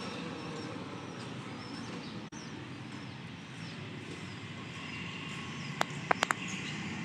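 Small birds chirping faintly over a steady rushing background, with a few sharp clicks about six seconds in.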